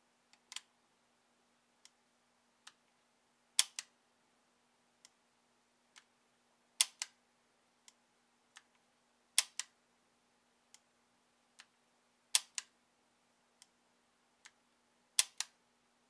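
Stainless Colt Python .357 revolver's action being cycled in single action, the hammer thumb-cocked again and again to check its timing. A sharp double click comes about every three seconds, with fainter clicks between, as the cylinder bolt and hammer work and the cylinder locks up.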